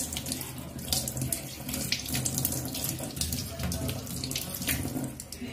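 Tap water running into a stainless steel sink and splashing over mushrooms rinsed in the hands, with irregular splashes throughout.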